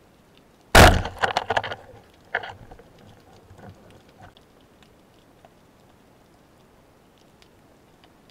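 Band-powered speargun fired underwater: a loud sharp crack of the shot about a second in, then a rattle of clicks from the released shaft and line and a second knock a second or so later, as the shaft spears a mullet.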